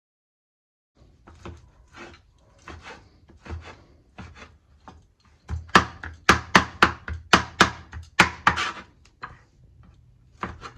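Knife chopping food on a wooden cutting board, cutting it into small pieces. Soft, uneven cuts at first, then a run of sharper, quicker chops at about four a second near the middle.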